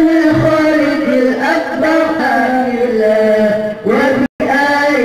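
A male voice chanting a slow, melismatic Islamic religious recitation, holding and sliding long notes. The sound cuts out for a moment about four seconds in.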